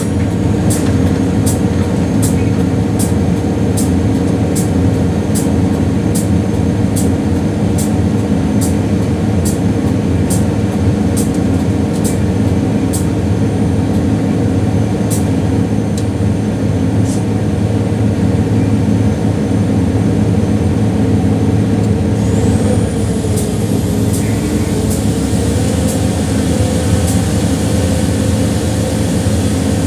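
A mixer truck's diesel engine running steadily, with light regular clicks about once a second through the first half. About two-thirds of the way through, a whine rises and the engine's pitch dips and climbs again.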